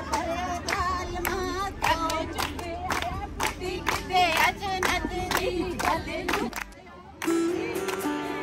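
A group of women singing together and clapping in a steady rhythm, about two to three claps a second. About seven seconds in, the singing and clapping cut off and a music track with steady held notes begins.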